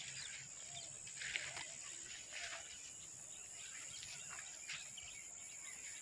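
Faint outdoor ambience: a few short, scattered bird chirps over a steady high-pitched insect drone.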